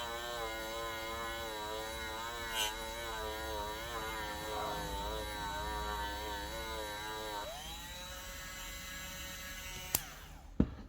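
Small electric buffer running with a steady whine, its pitch wavering slightly as it polishes a plastic windscreen with rubbing compound. About seven and a half seconds in it is switched off and its pitch falls as it winds down. A sharp click comes near the end, then a couple of knocks.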